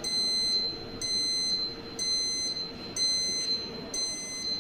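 Electronic alarm buzzer on a PLC trainer board beeping in short high-pitched beeps about once a second: the alarm output that the ladder program switches on when three or more inputs are on. A steady low hum runs underneath.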